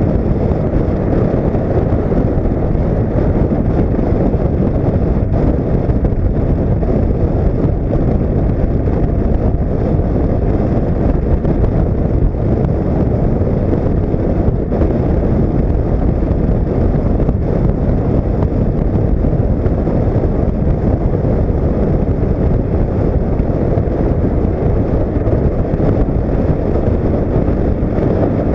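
Honda CB500X motorcycle on the move: steady, loud wind rumble on the action camera's microphone, with the bike's engine and road noise blended into it.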